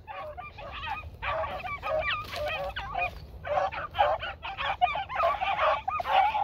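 A pack of beagles baying on a rabbit's trail, several hounds giving voice at once in overlapping calls that thicken after about a second.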